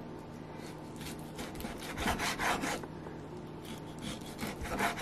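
Chef's knife slicing raw pork tenderloin into thin pieces on a bamboo cutting board: the blade saws back and forth through the meat and scrapes and taps the wood. The strokes come in a dense run about two seconds in and again toward the end.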